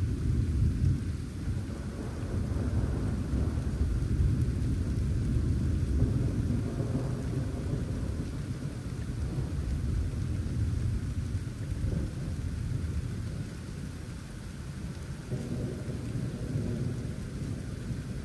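Long rolling thunder rumble over steady rain. It starts suddenly, eases off about two-thirds of the way through, then builds again near the end.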